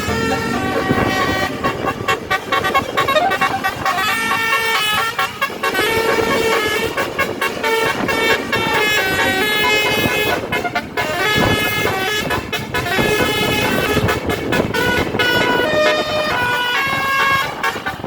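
Bus telolet horn, a multi-tone Basuri musical air horn, playing a quick melody whose notes step up and down in short repeated phrases.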